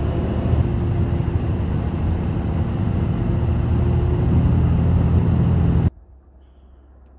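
Bus engine and road noise heard from inside the cabin of a moving bus: a steady low drone with a faint hum over it. It cuts off abruptly near the end, leaving only a faint background.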